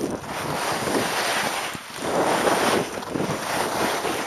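Wind rushing over the microphone of a skier's camera, mixed with the hiss of skis sliding on packed snow during a downhill run. It swells and eases, dipping briefly about two seconds in.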